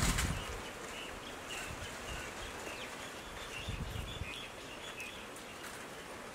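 Birds chirping, a run of short high calls through the middle, over a steady outdoor hiss. There are brief low rumbles at the start and about four seconds in.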